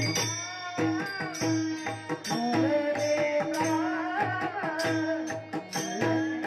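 Warkari devotional bhajan: boys' voices singing a melody over harmonium, with a steady beat on the mridang barrel drum and small hand cymbals (taal) striking in rhythm.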